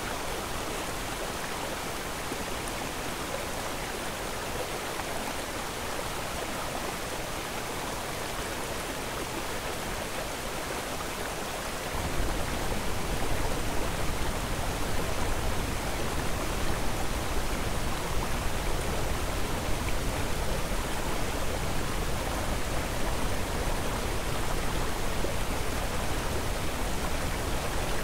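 Steady rushing noise, even and hiss-like, with a low rumble joining abruptly about twelve seconds in and making it louder.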